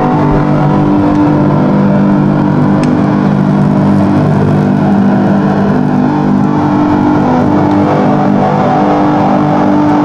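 Loud, steady drone of several held low tones over a rushing noise, with some of the tones dropping out and returning every few seconds.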